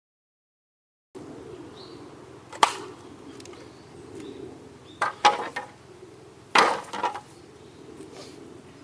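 Wood being chopped: sharp knocks starting about a second in, one strike, then two quick groups of strikes, over a low steady hum.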